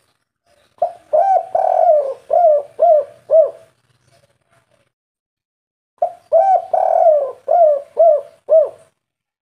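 Spotted dove (tekukur) cooing its 'kuk 3' song twice. Each phrase is a run of about six rising-and-falling coo notes, one of them longer than the rest, with a pause of about two seconds between the phrases.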